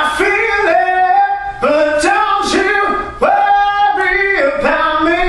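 A man singing a vocal line in a series of held notes, close up on a studio condenser microphone.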